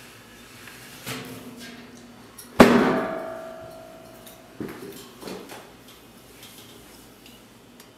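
A single loud bang about two and a half seconds in, with a ringing tail that fades over about a second and a half, among a few softer knocks and thumps.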